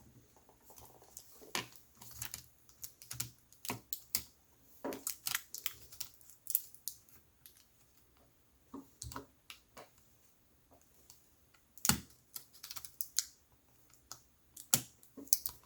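Irregular sharp clicks and taps of a laptop system board being worked down into its chassis, with a lull in the middle.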